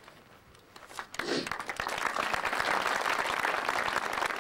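Audience applause breaking out about a second in: many hands clapping, building quickly and keeping up steadily.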